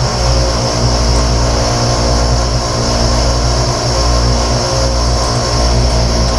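Background music in an instrumental passage without vocals: sustained droning tones over a pulsing bass.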